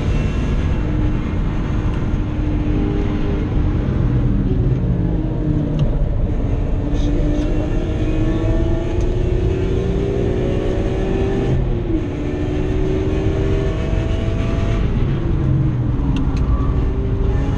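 BMW M3 E46's S54 straight-six at full throttle, heard from inside the cabin on track: the engine note climbs in pitch several times with sharp drops at gear changes and falls away near the end as the car slows, over steady road and wind noise.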